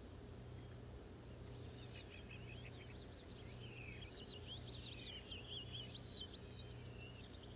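A bird chirping and twittering faintly and rapidly, starting about two seconds in, over a low steady hum.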